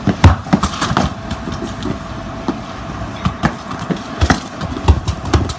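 A football kicked and dribbled in Adidas X football boots on stone patio paving: a hard strike about a quarter second in, then a run of sharper taps, bounces and boot scuffs, with a faint steady hum behind.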